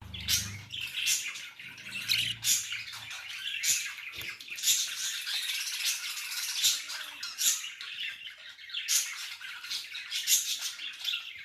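Baby budgerigar crying: harsh, raspy begging calls repeated in quick succession, the chick begging older budgies to feed it. A brief low rumble sounds near the start and again about two seconds in.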